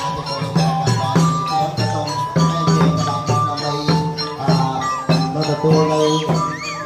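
Khmer traditional music: held melodic notes over a steady beat of struck percussion, with jingling percussion on top.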